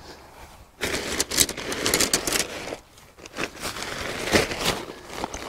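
Nylon outer flysheet of a Berghaus Cheviot 2 tent rustling and crinkling as it is pulled about, in two spells of about two seconds each.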